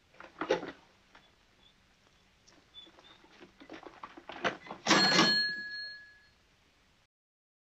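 An old mechanical cash register being worked, with a few soft clicks and clacks, then about five seconds in its bell rings once with a clatter, the ring fading away over about a second.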